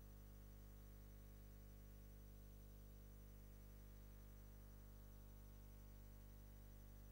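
Near silence: a faint, steady hum with light hiss.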